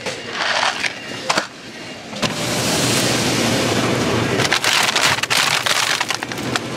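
Plastic food packaging rustling and crinkling in the hand: a few sharp crackles early on, then a steady hiss with quick, dense crackling in the second half as a bag of frozen pork cutlet is picked up.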